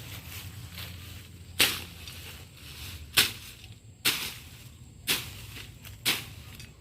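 Five sharp strikes, each dying away quickly and spaced roughly a second apart, over a steady low outdoor background.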